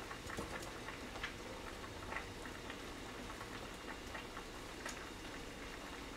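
Faint scattered clicks and taps of a kitchen knife cutting watermelon on a cutting board, over a steady faint hiss.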